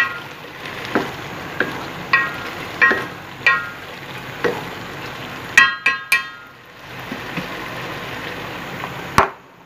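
Spoon stirring thick apple pulp cooking down on full heat in a metal pot, over a steady sizzling hiss, with repeated short ringing clinks of the spoon against the pot. A quick cluster of louder clinks comes about six seconds in, and a sharp knock near the end.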